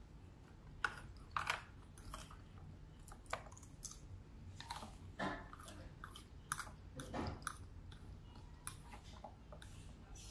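Close-up eating sounds: chewing rice and beans, with a plastic fork scraping and clicking against a plate in irregular strokes, the sharpest clicks a little after a second in.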